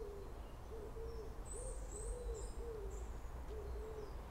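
A dove cooing outdoors: soft, low hooting notes that rise and fall, repeated about twice a second. Small birds chirp faintly and high above it.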